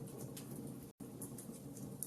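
Wood fire in a fireplace crackling, irregular small pops and snaps over a low steady rumble. The sound cuts out completely for an instant just before a second in.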